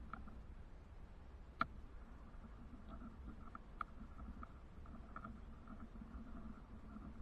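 Faint low rumble with a few scattered light clicks; the sharpest click comes about one and a half seconds in, another near four seconds.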